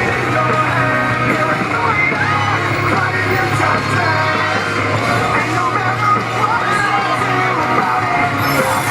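Loud music with singing, mixed with yelling voices.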